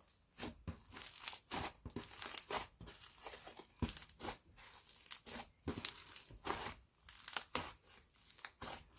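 Slime being stretched, pressed and fluffed by hand, giving irregular crackly sizzles and pops, a few strokes a second.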